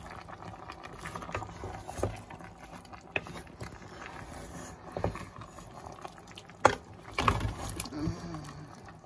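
Wooden spatula stirring chunks of chicken, potato and carrot in a black pot, with scattered knocks and scrapes of the spatula against the pot and the moving food; the loudest knock comes about two-thirds of the way in.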